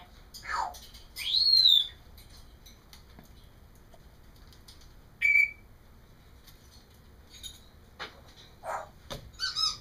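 African grey parrot whistling: a falling whistle, then a loud rising-and-falling whistle about a second in, a short whistle near the middle, and a quick run of chirps and squeaky calls near the end.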